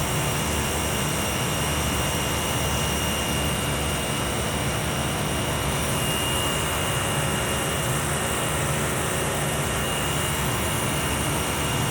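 Steady machinery noise of a running chiller: a constant hum and rush with a thin, steady high whine above it, unchanging throughout.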